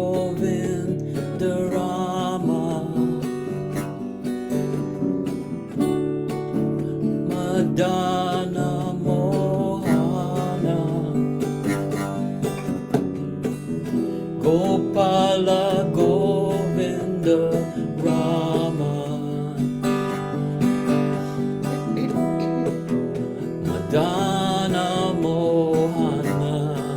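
Kirtan: voices chanting a devotional mantra in long melodic phrases over a steadily strummed acoustic guitar.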